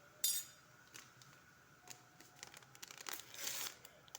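A small vanilla sachet crinkling as it is handled and torn open, with a short sharp rip about a quarter second in and a longer rustle near the end.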